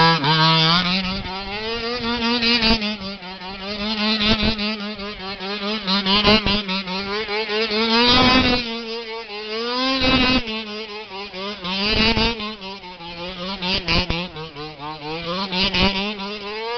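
HPI Baja 5T 1/5-scale RC truck's small two-stroke petrol engine running hard as the truck spins donuts on grass, its pitch rising and falling over and over. Short rushes of noise come about every two seconds.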